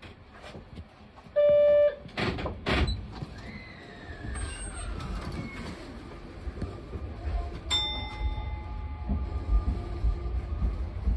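Sotetsu 20000 series electric train pulling out of a station. A short, loud buzzer tone sounds about a second and a half in, followed by two thumps and then a falling whine. A click with a brief ringing tone comes near the end, while the low rumble of the train rolling away builds.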